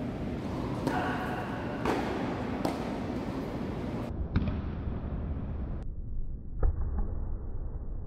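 Tennis rally on a hard court: three sharp racket-on-ball hits about a second apart. A few seconds in, the sound is slowed down for a slow-motion replay, turning dull and low, with two deep thuds from further hits.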